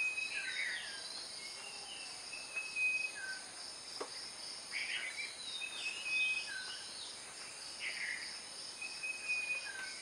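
Outdoor background of insects shrilling steadily, with a small bird repeating a short whistled phrase every few seconds: a clear held note followed by a falling chirp.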